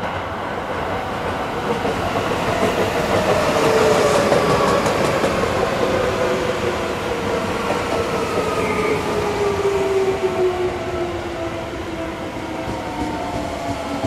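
Seibu 20000 series electric train with a Hitachi three-level IGBT VVVF inverter, its inverter and traction-motor whine falling steadily in pitch as the train slows to a stop. A few clacks from the wheels come about three to five seconds in.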